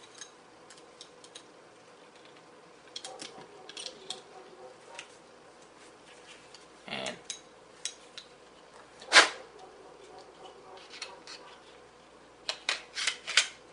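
Glock pistol being taken apart and put back together by hand: scattered small clicks and rattles of the slide, barrel and recoil spring against the frame, with a rub about seven seconds in and one sharp, loud snap about nine seconds in.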